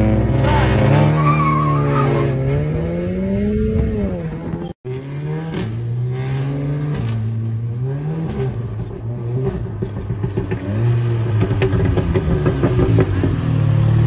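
Car engines with loud exhausts being revved, the pitch climbing and dropping back several times, with a brief cut-out about five seconds in.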